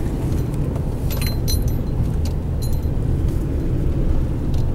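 Steady low rumble of a car's engine and tyres heard inside the cabin as it drives slowly, with a few light clicks about one to three seconds in.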